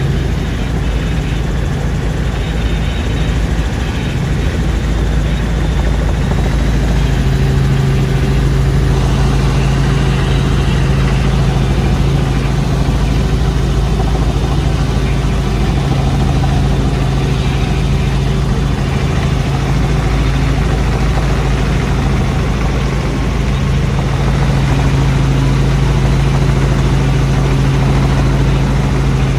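Helicopter in flight heard from inside the cabin: a steady, loud drone of engine and rotor with a strong low hum.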